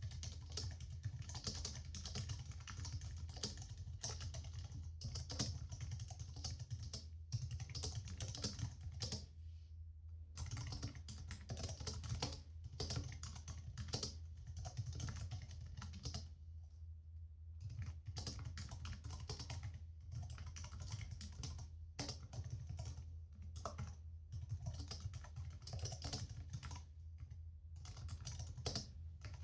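Laptop keyboard typing: rapid, continuous keystrokes with a few short pauses, over a steady low hum.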